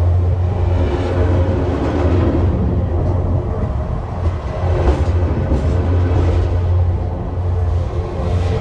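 Freight train cars rolling past close to the rails: a loud, steady low hum and rumble of steel wheels on the rails.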